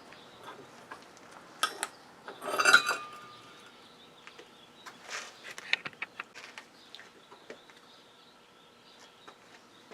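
Metal parts of a circuit breaker clinking and clicking as it is worked apart by hand, with a louder clatter about two to three seconds in and scattered light ticks after.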